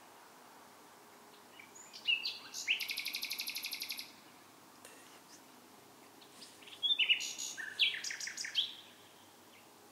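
A songbird singing at night in two separate phrases with pauses between them. About two seconds in comes a phrase ending in a fast run of repeated notes, and near the end comes a second, more varied phrase.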